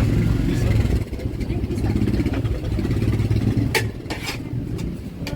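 Street traffic: a motorbike engine running close by, its low rumble easing about a second in and carrying on more faintly, with one sharp clack near the end.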